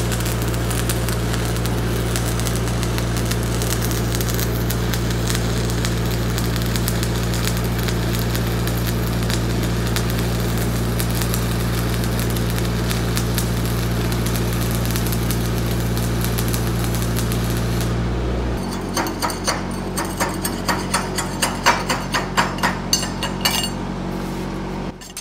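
Crackle and sizzle of a 5/32" 6013 stick electrode burning in the welding arc at about 80 amps, over the steady hum of the welding machine. About 18 seconds in the arc stops and the hum drops, and a quick run of sharp knocks and scrapes follows as the slag is cleaned off the weld.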